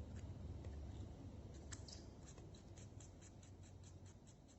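Faint run of small plastic clicks, about five a second starting near the middle, from the battery compartment of a Boya BY-M1 lavalier microphone as a button cell is fitted into it.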